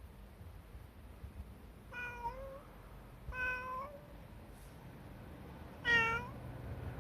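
Brown tabby cat meowing three times, with high, sweet calls about a second and a half apart and then a louder, shorter one near the end.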